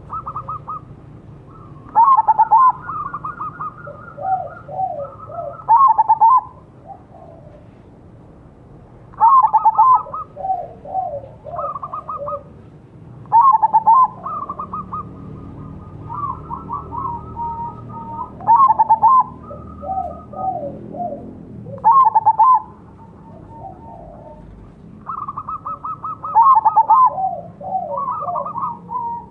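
Zebra doves (perkutut), a crossbred bird among them, cooing back and forth. Each call is a phrase of quick pulsing coo notes. Phrases at different pitches overlap, and loud ones come about every three to four seconds.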